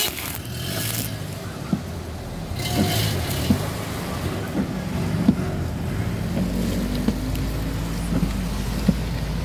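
A car moving slowly in traffic on a rain-soaked road, heard from inside the car: a steady low engine and road hum with tyre hiss on the wet pavement, and a few light ticks.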